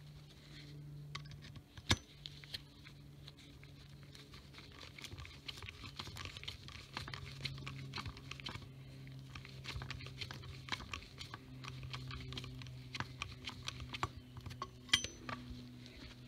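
Steel chainring bolts being turned in with a T30 Torx socket on an extension: scattered small metal clicks and scrapes, with paper towel crinkling under the crank, over a steady low hum. Two sharper clicks stand out, about two seconds in and near the end.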